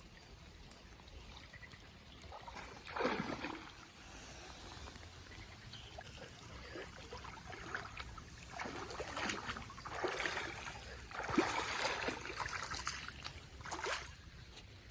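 Water splashing and sloshing in several bursts from a person swimming, over a steady faint patter of rain; the splashes come once about three seconds in, then repeatedly in the second half.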